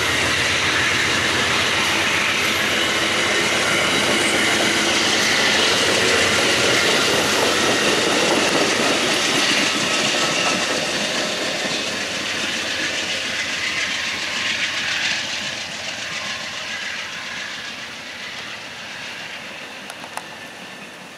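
Amtrak passenger train cars rolling past on the rails. The noise is loud at first, then fades steadily from about halfway through as the train draws away.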